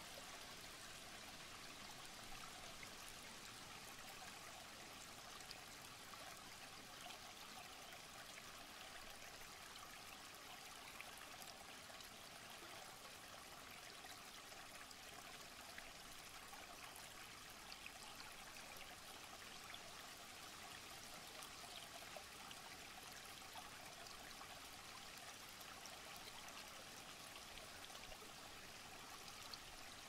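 Small rocky forest stream trickling over stones: a soft, steady rush of running water flecked with tiny splashes.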